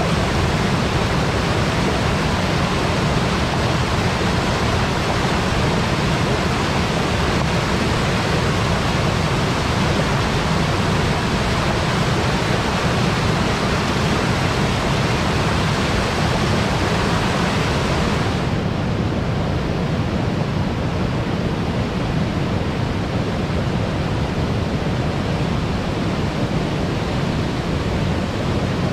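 River water pouring over a weir in a loud, steady rush. About two-thirds of the way through, the hiss drops away and the rush sounds duller.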